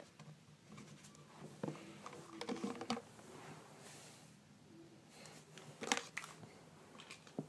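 Faint scattered clicks and light rustling, with a short faint whine about two and a half seconds in.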